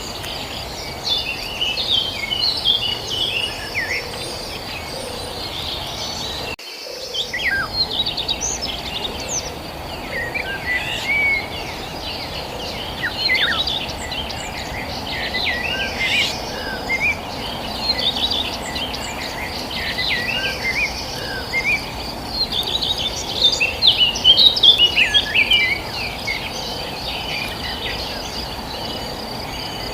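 Several small birds chirping and twittering in quick, overlapping short calls, over a steady high-pitched insect drone. The chirping is busiest and loudest about three-quarters of the way through.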